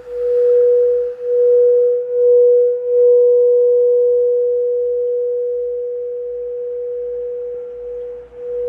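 Singing bowl ringing on one steady mid-pitched tone with a faint higher overtone. It swells and dips about once a second at first, then holds in a long, slowly fading sustain, then pulses again near the end.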